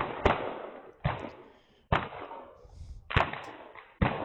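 Several smoothbore pistol shots on a firing line, sharp cracks at irregular intervals, each with an echoing tail.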